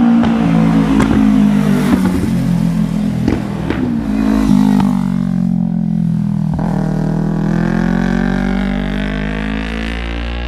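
Kawasaki Ninja 300's parallel-twin engine through an MGP Growler exhaust, its revs falling away with a series of sharp crackles and pops over the first few seconds. It then settles into a steadier running note.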